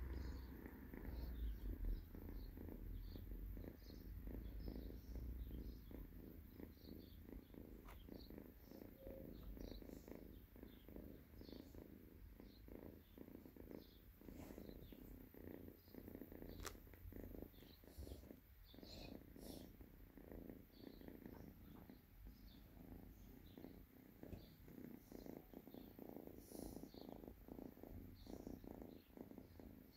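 Kitten purring softly and steadily while lying on its back being handled.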